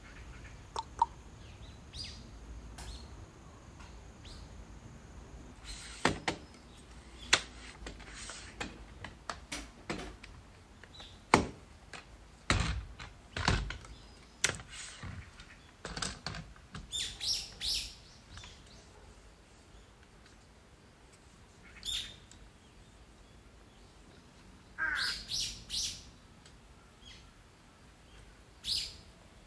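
Birds chirping in short calls, one sliding down in pitch about three-quarters of the way through. Earlier there is a run of sharp knocks and clatters, the loudest sounds here.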